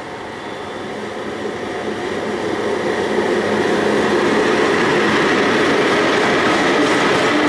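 VL11M two-section DC electric locomotive hauling a freight train, passing close by: the rumble of its wheels on the rails and its running noise grow louder over the first three or four seconds, then hold steady as the open wagons begin to roll past.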